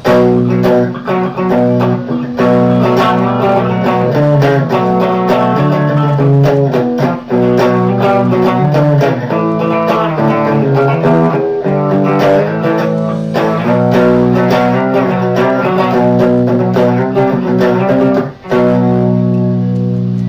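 A custom-built hybrid guitar, the Sphinx, playing a riff on its bridge pickup with a clean tone: picked notes and chords ringing out, with short breaks between phrases.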